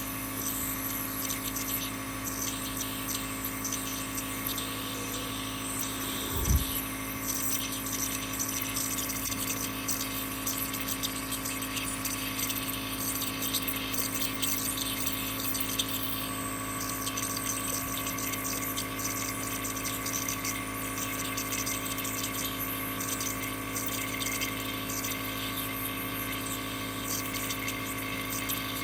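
A steady machine hum with hiss, and one low thump about six and a half seconds in.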